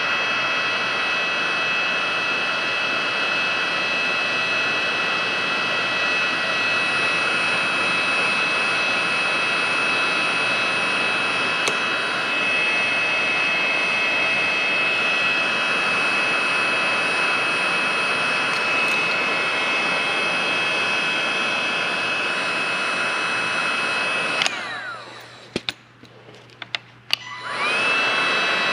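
Heat gun blowing steadily with a high motor whine, shrinking heat-shrink tubing over a crimped battery cable lug. About 24 seconds in it is switched off and its whine falls away as the fan spins down. A few clicks follow, then it is switched back on near the end and the whine rises again.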